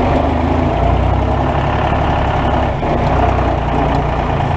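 International Harvester 533 tractor engine running steadily as the tractor drives along, heard from inside the cab.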